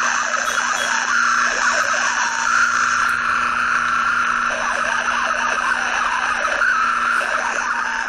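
Radio static: a steady hiss with a constant low hum and warbling tones that waver in pitch.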